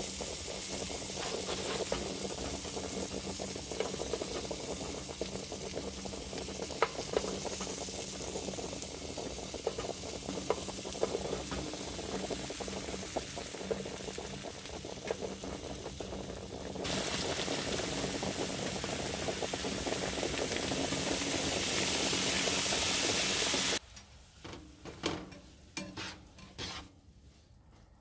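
Food frying in melted spread in a nonstick frying pan on a wood stove top: a steady sizzle that grows louder about two-thirds of the way through, then stops abruptly. Near the end only the scattered clicks and scrapes of a spatula stirring diced ham and mushrooms in the pan remain.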